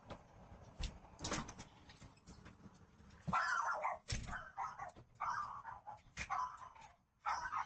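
A dog barking repeatedly, about once a second, after a few faint clicks and knocks.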